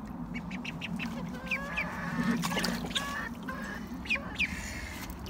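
Ducklings and chickens calling: many short, high, falling peeps, with a few longer calls mixed in.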